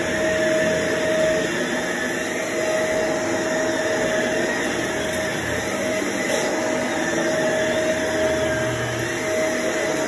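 Upright vacuum cleaner running steadily as it is pushed over carpet: a constant motor hum and airflow noise with a steady whine.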